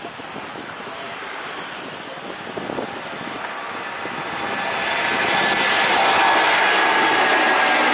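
Twin-engine widebody jet airliner climbing out just after take-off under take-off thrust. Its engine rush grows louder from about four seconds in, with a high whine on top as it passes overhead.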